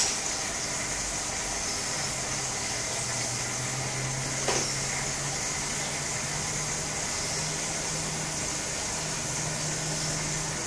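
Steady low hum and hiss of running aquarium equipment, the hum shifting slightly in pitch partway through. A sharp click at the very start and a brief knock about four and a half seconds in.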